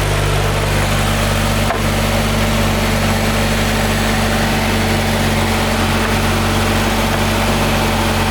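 Mitsubishi Lancer Evolution X's 2.0-litre turbocharged four-cylinder engine idling steadily, with a freshly installed ETS cold air intake.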